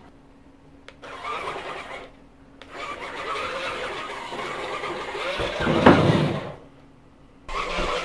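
Electric drive motors of a homemade cardboard remote-control truck whirring in bursts that stop and start. A loud low thump comes about six seconds in.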